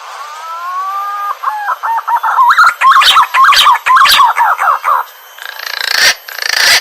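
Punai (green pigeon) calling: a long, slightly rising whistled note, then a rapid run of warbling, wavering whistles, very loud. Near the end it turns into a harsher, hissing sound.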